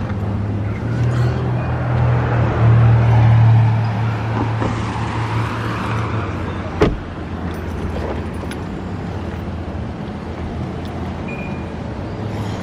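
A car running, a steady low hum that is strongest for the first six seconds, with a single sharp click about seven seconds in.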